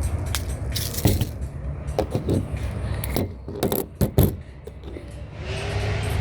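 Sharp metallic clicks and clinks from a CO2 BB pistol, about eight irregular strikes with the loudest about a second in and just after four seconds, over a low steady hum.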